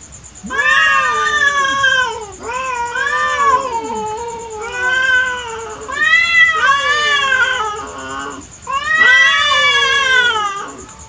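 Two domestic tabby cats caterwauling at each other in a standoff: long, wavering yowls that rise and fall one after another, at times overlapping. This is the threat yowling of cats squaring up to fight.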